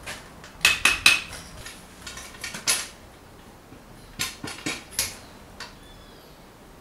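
Steel foundry tongs and rod clinking and scraping against a melting furnace and its crucible. Sharp metallic clanks come in three quick groups, about a second in, around two and a half seconds and between four and five seconds, and the first group rings briefly.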